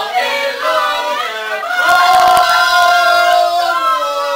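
Several voices singing in chorus, holding a long drawn-out note together that swells about two seconds in, with a brief crackle of sharp clicks at that point.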